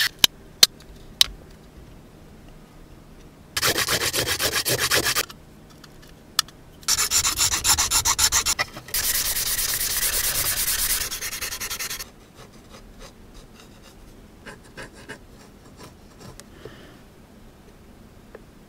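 Sandpaper rubbed quickly back and forth over a 3D-pen plastic part: two short spells of rapid strokes, then a steadier run of about three seconds. Faint clicks and taps of handling before and after.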